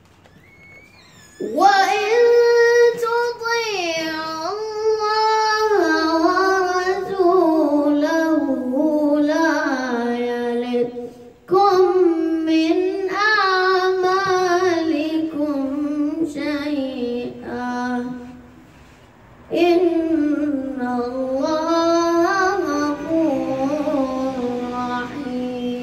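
A boy reciting the Quran in Arabic in a slow, melodic chant, holding long drawn-out notes. He begins about a second and a half in and falls silent twice for breath: briefly near the middle, then for about a second and a half later on.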